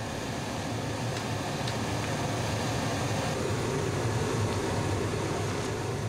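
Electric blower fan running steadily, forcing air into the firebox under an anchovy-boiling cauldron: an even rushing noise that grows a little louder partway through.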